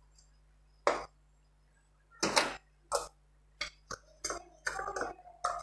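Off-camera kitchen handling noise: a dozen or so short clicks and knocks of utensils and containers being moved and set down, coming closer together near the end.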